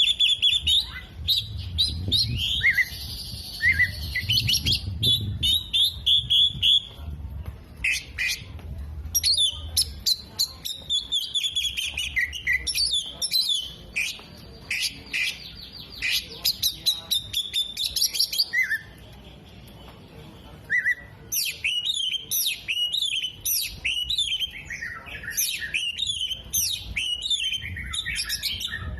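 Oriental magpie-robin (kacer) singing in full voice: a long, fast, varied run of chirps, trills and whistles, with a short lull about two-thirds of the way through.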